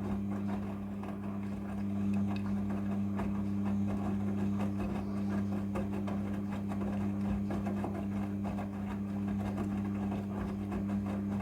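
Midea front-loading washing machine running: a steady low hum, with many small irregular knocks and rustling from the load in the drum.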